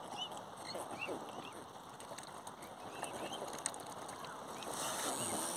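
Waterfowl calling at a feeding spot on a lake: repeated short high chirps and a few lower honking calls. A hissing rustle comes up near the end.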